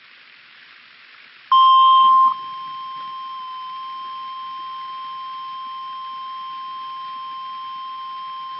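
NOAA Weather Radio warning alarm tone: after about a second and a half of faint hiss, a single steady pitch comes in, loud for under a second, then holds steady at a lower level. It is the alert tone that comes before a flash flood warning broadcast.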